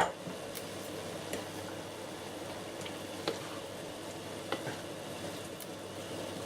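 Mushroom and onion sauce with crème fraîche sizzling steadily in a wok. A sharp knock right at the start is likely the spoon striking the pan, followed by a few faint light clicks.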